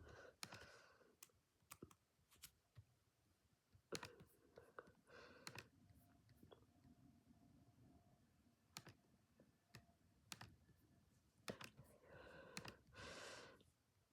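Near silence with faint, irregular clicks and a few soft breath-like puffs of noise.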